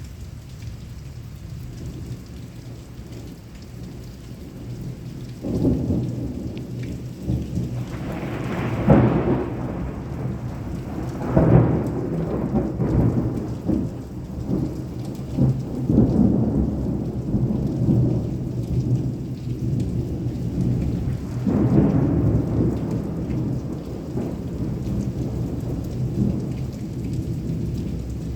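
Heavy rain falling steadily, with thunder that starts rumbling about five seconds in, peaks in a couple of loud claps soon after, and rolls on for over fifteen seconds before dying away near the end.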